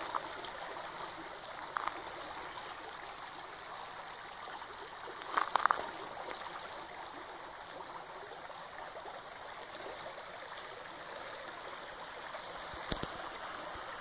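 Shallow creek running over a pebble bed, a steady babbling rush of water. A few short clicks break through it, the loudest a quick cluster about five and a half seconds in.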